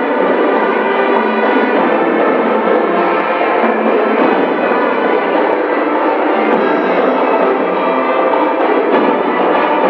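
Marching show band playing live, brass and drums together in a steady, continuous passage of held notes.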